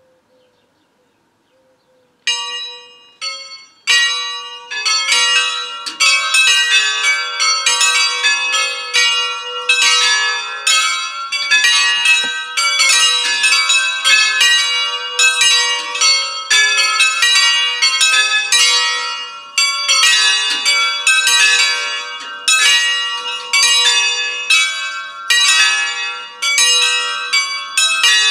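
A peal of five hand-rung church bells in A, cast by Allanconi in the 1980s, swinging in a full peal (distesa). After about two seconds of quiet the first few separate strokes sound, and from about four seconds in all the bells ring together in a dense, continuous run of overlapping strokes.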